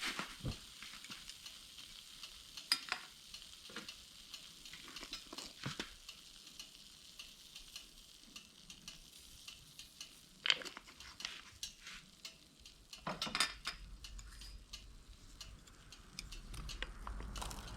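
Small moroko fish deep-frying whole in oil in a cast-iron skillet: a steady sizzle with occasional sharp clicks of a utensil against the pan.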